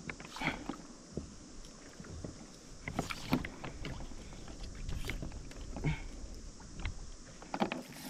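Water lapping and splashing against a fishing kayak's hull, with scattered short knocks and splashes during a fight with a hooked fish.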